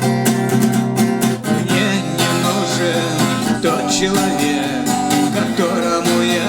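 Acoustic guitar strummed as song accompaniment, with a steady strum pattern that breaks off briefly about a second and a half in before the playing resumes.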